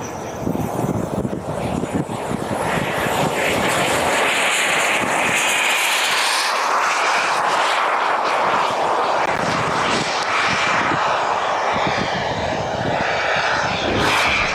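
RC model jet's miniature gas turbine spooling up to full power for takeoff: a rising roar with a high whine that then holds loud and steady as the jet rolls and climbs away.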